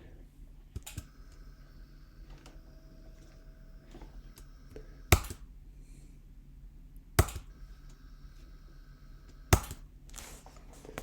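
Sharp clicks of the RF-controlled plug socket's relay switching on and off: faint ones about a second in, then three loud clicks about two seconds apart. A faint steady whine sounds between some of the clicks.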